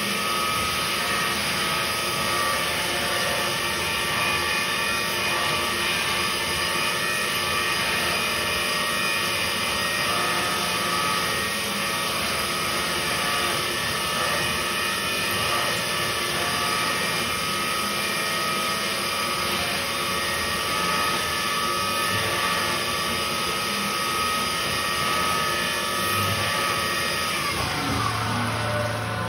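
DIY 4-axis CNC milling machine cutting a metal part under flood coolant: a steady spindle and cutter whine with several held tones over the hiss of spraying coolant. Near the end the tones glide down in pitch.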